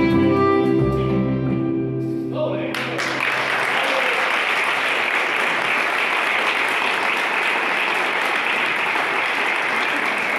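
A choir with acoustic accompaniment holds the final chord of a song, which ends a little over two seconds in, and the audience breaks into steady applause.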